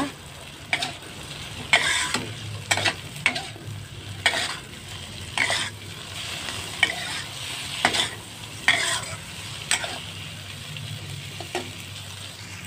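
A metal spatula scraping and knocking against a wok as tempe, petai and green chillies are stir-fried, in irregular strokes about once a second over a steady sizzle of frying.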